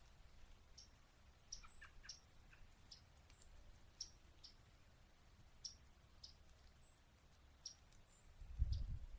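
Yellow-rumped warblers giving short, sharp chip calls, repeated irregularly about every half second to a second. A low rumble comes in near the end.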